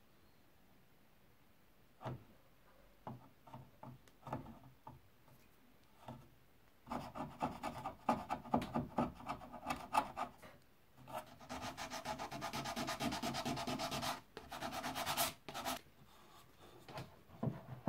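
Steel wood chisel paring and scraping rimu on a table leg. It opens near silent, then come a few scattered light taps, and from about seven seconds in, runs of quick rasping strokes with short breaks between them.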